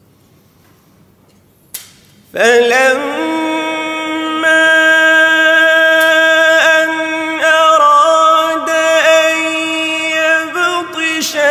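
A male voice chanting Quran recitation in melodic tajweed style. After about two seconds of quiet room tone and a brief sharp sound, he begins a phrase sung in long, held, mostly level notes with small melodic turns.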